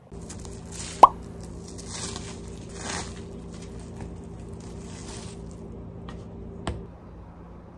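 Thin plastic film crinkling as it is peeled off a frozen puff pastry sheet, with a short rising pop about a second in, the loudest sound. A steady low hum runs underneath, and a single knock comes near the end.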